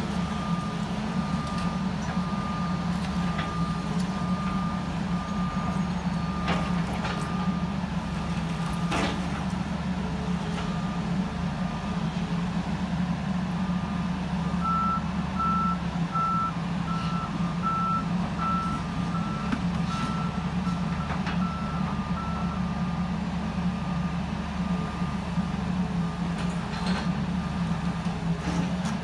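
Heavy excavator's diesel engine running steadily under load while it tears down a brick wall. A backup alarm beeps evenly through most of it, and a second alarm at a slightly higher pitch joins for several seconds midway. A few sharp knocks come through.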